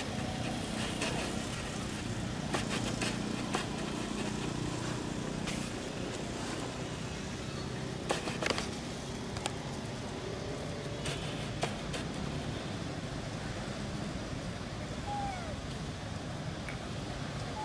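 Steady outdoor background rumble with scattered sharp clicks, a cluster of them about halfway through, and a brief high chirp near the end.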